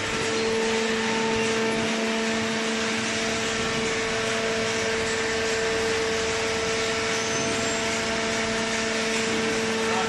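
Hydraulic power unit of a fully automatic horizontal paper baler running: a steady mechanical hum with a constant low whine over a hiss.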